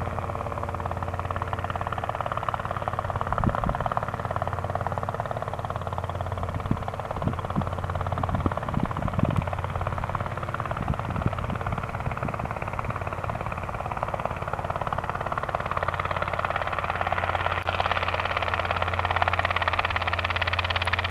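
Robinson R22 Beta piston helicopter approaching to land, its rotor and engine making a steady drone. There are irregular low thumps in the first half, and the sound grows louder and brighter in the last few seconds as it comes closer.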